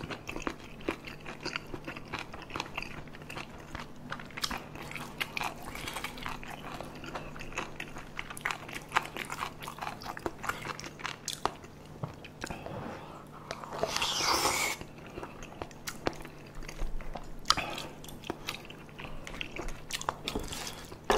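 Close-miked mouth sounds of chewing spicy tteokbokki (chewy rice cakes and fish cakes in red sauce): a dense run of wet clicks and smacks. About two-thirds of the way through comes a brief louder rush of noise, and a faint steady hum runs underneath.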